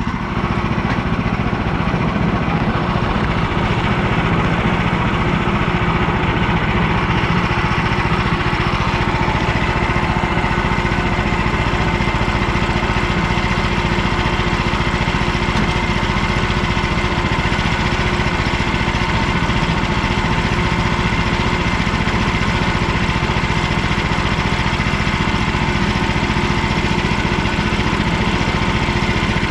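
Woodland Mills HM130 portable bandsaw mill running steadily, its gas engine held at a constant speed while the blade cuts a board off a walnut cant.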